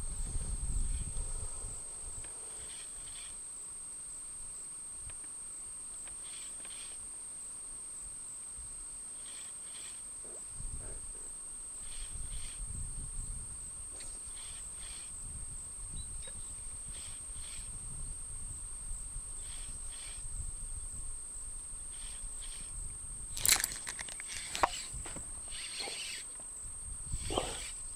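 Crickets trilling in one steady high-pitched drone, with faint scattered rustles. A sharp knock comes about 23 seconds in, and another near the end.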